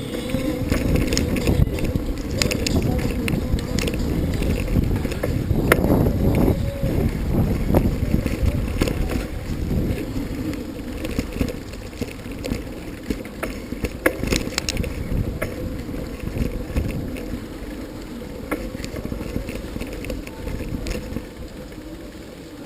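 Bicycle ride heard from the rider's camera: wind rushing over the microphone and road rumble, with scattered clicks and rattles. It grows quieter in the second half.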